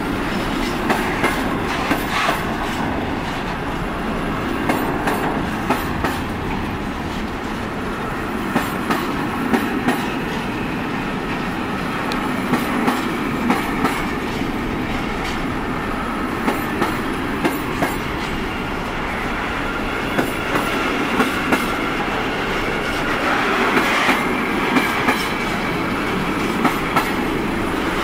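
Container freight train wagons rolling past: a steady rumble of wheels on rail, with sharp clickety-clack as wheel sets cross rail joints, the clicks coming in quick pairs and groups every second or so.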